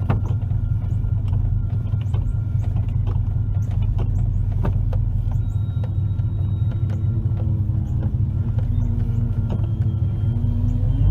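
Chevrolet 454 big-block V8 idling steadily, with several light clicks. About halfway in a faint whine comes in, rising slightly in pitch near the end.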